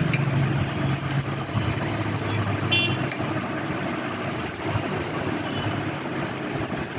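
Steady background noise like road traffic, with a brief high-pitched toot about three seconds in.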